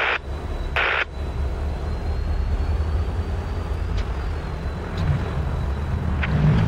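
Norfolk Southern diesel-electric freight locomotive running as it rolls slowly toward the listener, a steady low engine rumble that grows louder near the end. A short burst of scanner radio static comes about a second in.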